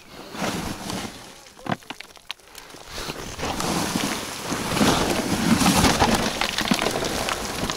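Rough scuffling and rattling of loose shale being disturbed, with two sharp knocks about two seconds in and a louder stretch of scraping in the second half.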